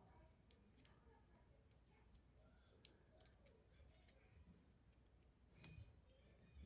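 Faint clicks and taps of small folding-knife parts being handled and fitted together during reassembly, with two sharper clicks about three and five and a half seconds in.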